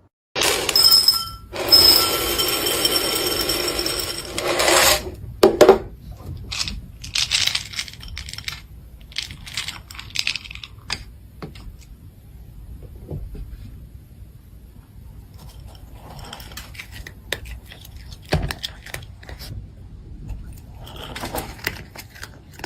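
Metallic clattering and jingling, loudest for the first five seconds, then scattered clicks and rattles.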